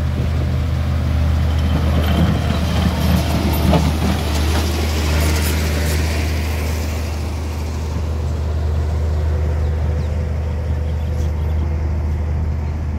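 Heavy diesel engine running steadily with a deep, even hum. Between about 2 and 7 seconds in, a rushing noise with a few clicks rises over it and then fades.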